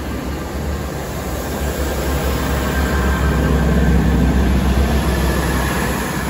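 Chiltern Railways Class 165 diesel multiple unit pulling out of the station, its underfloor diesel engines giving a deep rumble as the carriages pass. The rumble swells to its loudest about four seconds in, with a faint whine above it.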